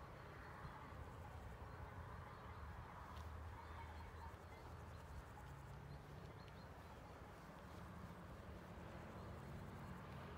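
Near silence: faint outdoor ambience with a low, steady rumble.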